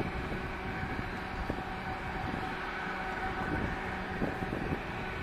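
Boeing 737-800's CFM56-7B jet engines at climb thrust just after takeoff: a steady rumble with a faint hum running through it.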